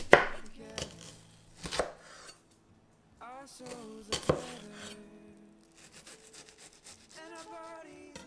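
Chef's knife slicing through an onion and striking a wooden cutting board. First come a few separate firm cuts, then a run of quicker, lighter cuts near the end.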